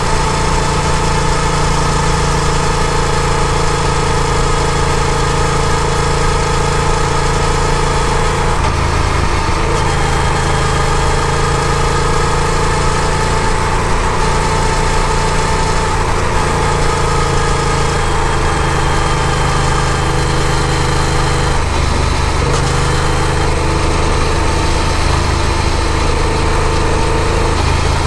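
Yamaha FZ-07's parallel-twin engine running steadily while the motorcycle is ridden. Its note shifts about a third of the way through and again about three quarters of the way through.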